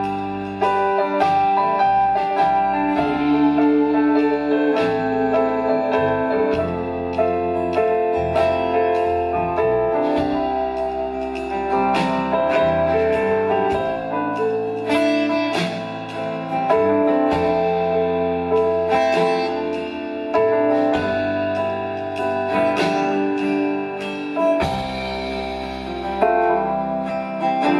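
Live rock band playing an instrumental passage, led by guitar over bass and a steady beat.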